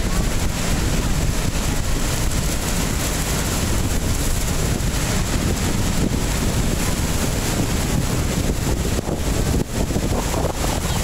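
Steady rushing noise of the American Falls and Bridal Veil Falls pouring onto the rocks, mixed with heavy wind buffeting on the microphone.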